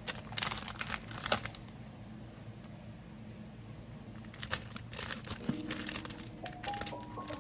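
Plastic smoothie-mix bag crinkling as it is handled and pulled open at the top. A burst of crinkling comes in the first second and a half, then a quieter stretch, and more crinkling starts about four seconds in.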